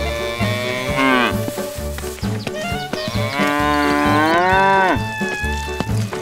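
Cow mooing twice: a moo of about a second near the start, then a longer one in the middle, each sagging in pitch at its end. Background music with a steady low beat runs underneath.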